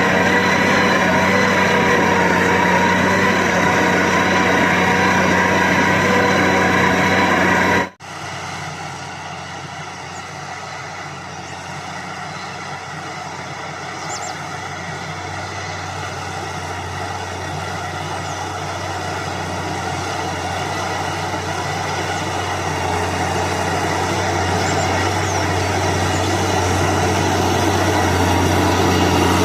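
Big Valmet tractor's diesel engine running steadily while pulling a land plane. About eight seconds in, the sound cuts off abruptly and comes back fainter, then grows steadily louder toward the end.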